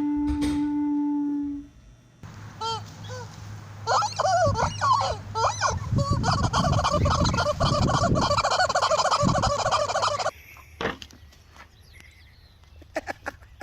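A held flute-like note ends about two seconds in. A few seconds later, turkeys break into loud, rapid, overlapping gobbling that cuts off suddenly about ten seconds in.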